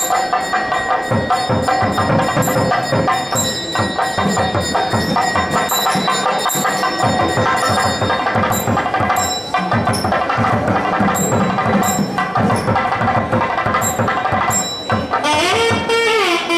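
South Indian temple music played during the puja: rapid, steady drumming with a held melodic line over it and bells struck in quick repetition.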